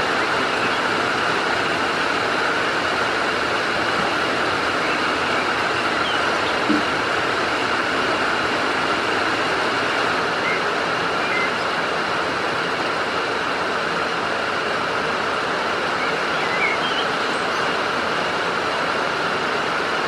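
Steady, even rushing of heavy rain and running water. A single soft knock comes about a third of the way in, and a few faint short high chirps come and go.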